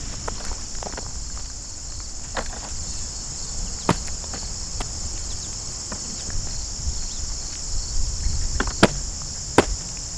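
A steady high drone of insects chirring, with footsteps on loose gravel and a few sharp clicks, about four seconds in and twice near the end, as stones are picked up off the driveway.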